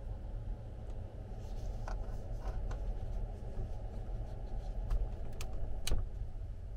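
Steady low hum of room air in a small enclosed space, with a few sharp clicks, the loudest about six seconds in.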